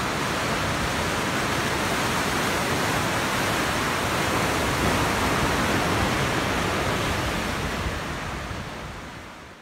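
Ocean surf washing over a rocky shore, a steady rushing noise that fades out near the end.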